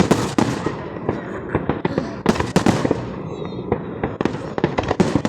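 Fireworks display: a rapid, irregular string of booms and crackling bangs from aerial shells bursting, with larger clusters about two seconds in and near the end.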